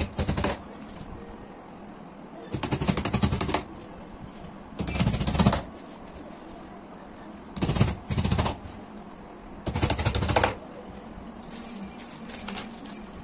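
A small hammer tapping nails into the thin fibreboard back panel of a flat-pack bookcase, in runs of quick light taps, each run about a second long, with about six runs and short pauses between them; the last run is fainter.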